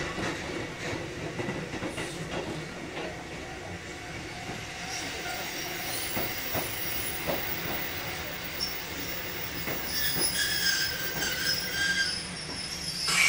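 Running sound of a Kotoden 1080 series electric train (ex-Keikyu 1000 series): a steady rumble with wheels knocking over rail joints at uneven intervals. A high-pitched wheel squeal comes in about ten seconds in, and a loud clank sounds near the end.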